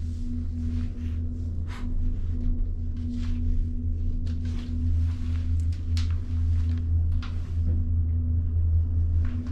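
Steady low mechanical hum inside a moving ski-resort gondola cabin, with a held drone-like tone. Light clicks and rustles come and go over it.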